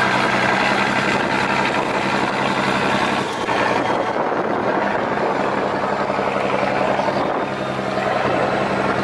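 Turbocharged Komatsu diesel engine of a 75-ton rice cargo boat running steadily while the boat is under way: a loud, constant drone with a steady low hum.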